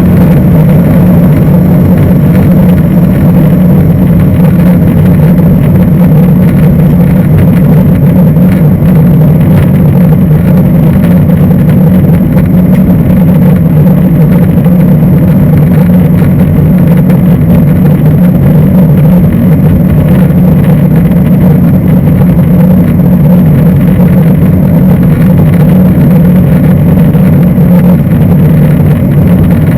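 Cabin noise of a Boeing 747-400 heard from the rear of the cabin just after take-off. It is a loud, steady drone from its four Rolls-Royce RB211 turbofans at climb power.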